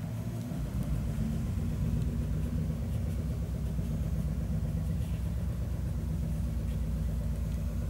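A steady low mechanical rumble, like an engine or motor running, setting in about half a second in and holding evenly until near the end.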